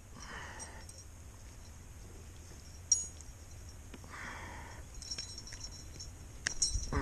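Quiet fish-handling noises: a few light clicks and clinks of the lure's metal as it is worked out of a small bass's mouth, with a couple of soft rustles.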